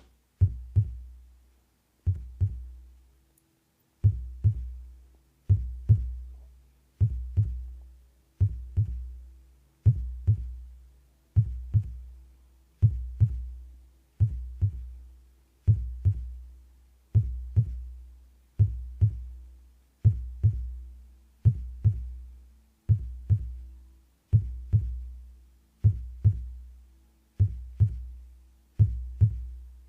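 Amplified human heartbeat: slow, even lub-dub pairs of deep thumps about one and a half seconds apart, with a longer pause about three seconds in.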